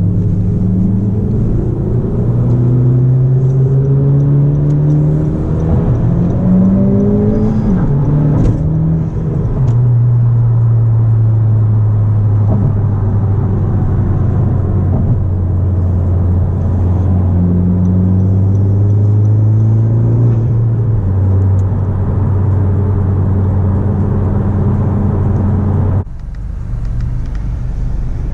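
Car engine running under way, its pitch rising a few times in the first several seconds before settling into a steady drone. The sound changes abruptly near the end.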